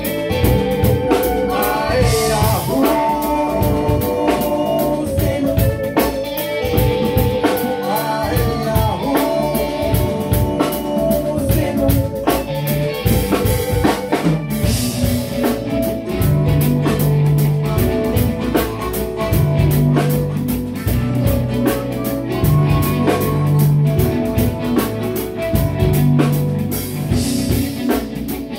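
A band rehearsing a song: a drum kit keeping a steady beat under bass, guitar and a singing voice.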